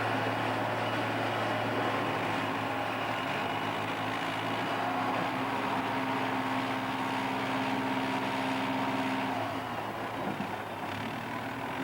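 John Deere self-propelled forage harvester running steadily while cutting maize, a strong low hum with steady tones over it. About nine and a half seconds in the tones fall away and the sound gets slightly quieter.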